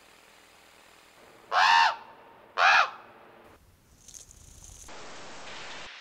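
A crow-type bird cawing twice, two loud calls about a second apart, each rising and falling in pitch.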